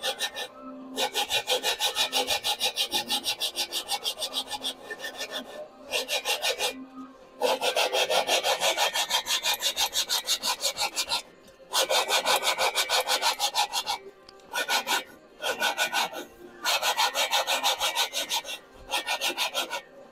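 Gritty scraping of a Type 4 engine's 96 mm cylinder barrel being twisted back and forth by hand against its cylinder head, with rubbing compound between them, lapping the sealing faces flat so the two metal surfaces mate. It comes as bouts of quick, rhythmic strokes with short pauses between them.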